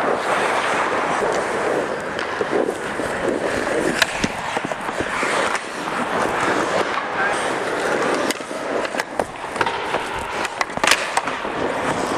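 Hockey skates carving and scraping on the ice close to the net, with sharp clacks of sticks and pucks as shots come in on the goalie. The loudest cracks come about four seconds in and again near the end.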